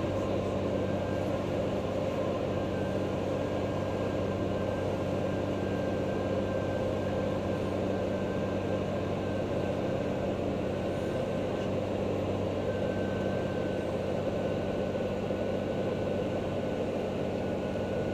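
Cirrus single-engine piston aircraft's engine and propeller droning steadily, heard from inside the cabin on the landing approach. A faint thin high tone comes and goes over it.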